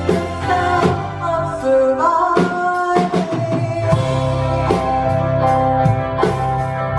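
Live band music: a woman singing lead over a drum kit keeping a steady beat, with a long note held through the second half.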